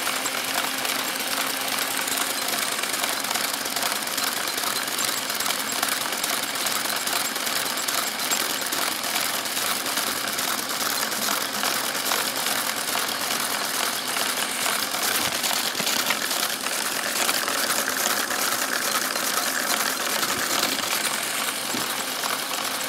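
Small Lego electric motors running steadily, spinning the car wash brushes and driving the slow geared conveyor, with a fast, even rattle of plastic gears and brushes.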